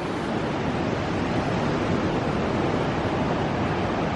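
Steady rush of wind and ocean surf, with wind buffeting the microphone.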